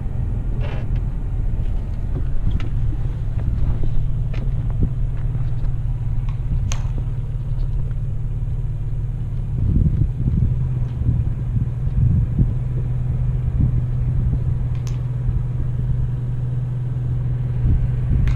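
Vehicle engine running with a steady low rumble and hum, and a few short clicks on top.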